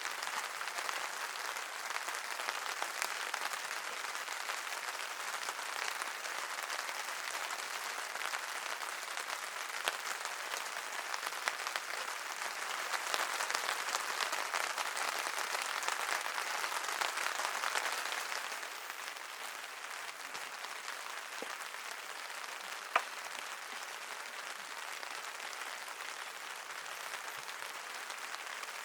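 Steady rain falling, heavier for several seconds in the middle of the stretch, with a single sharp click about 23 seconds in.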